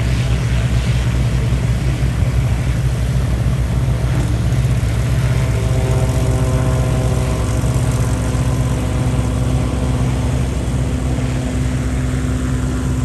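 Gyroplane engine and propeller running: a loud, steady low thrum with a fast, even pulse. Steady higher engine tones come in about six seconds in.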